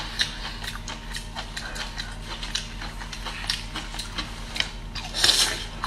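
Pickled sour-spicy bamboo shoot being peeled apart and chewed: a run of small, crisp clicks and crackles, with a louder crunching rustle about five seconds in.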